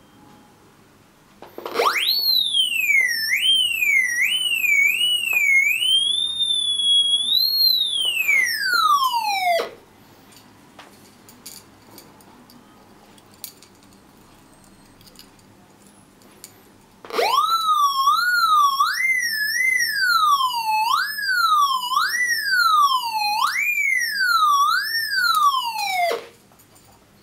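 Raptor X pulse induction metal detector's audio tone responding to metal passed over its search coil. Twice the tone jumps up, warbles up and down in pitch as the target moves, then glides down and cuts off; the second response is lower-pitched than the first.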